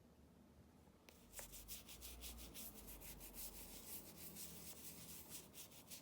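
Rapid scratchy rubbing strokes, several a second, starting about a second in.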